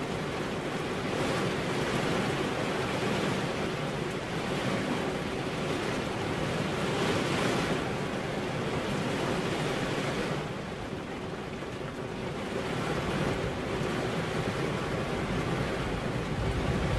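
Rain falling steadily, an even wash of noise that eases briefly a little past the middle.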